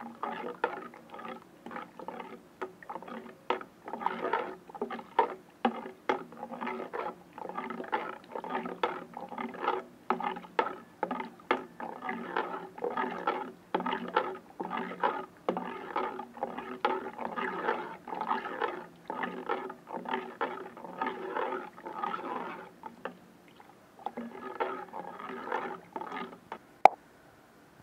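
A large pot of thick, heating plantain porridge being stirred: repeated wet sloshing with knocks and scrapes of the stirring utensil against the pot, about one to two strokes a second. The stirring pauses briefly near the end and resumes, with one sharp knock just before it stops.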